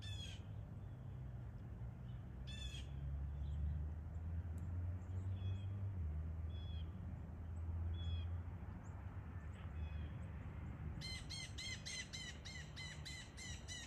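Bird calls: a few separate harsh calls, then a fast run of them at about three a second near the end, over a steady low rumble.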